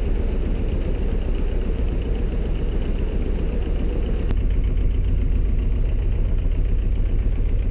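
Sailboat's inboard diesel engine running steadily with a deep, low rumble while the boat motors slowly through the lock.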